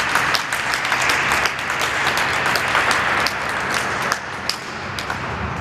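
Audience applauding with dense clapping that thins out and dies away near the end.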